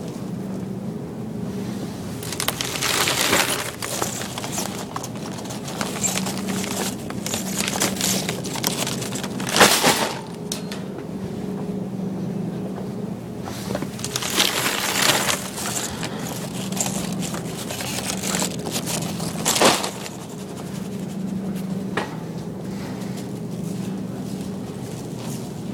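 Metal shopping cart rolling along a store floor with a steady low rattle, broken four times by loud bursts of rustling and scraping close to the microphone.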